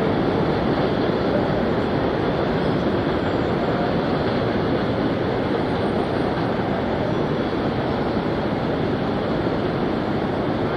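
R32 subway trains on elevated track: a steady rumble of steel wheels on rail as one train pulls away and another approaches.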